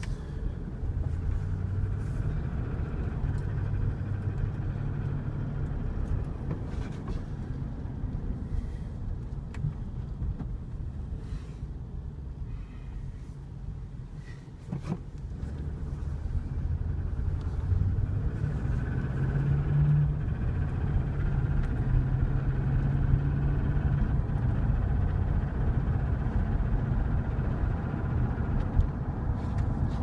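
Cab interior of a 1999 GMC Suburban under way, its 5.7 L Vortec V8 running and pulling with road rumble. The engine note eases off around the middle, then builds again as it pulls away. The engine has a knock that comes and goes with load and fades as the engine warms, which the owner takes for piston slap.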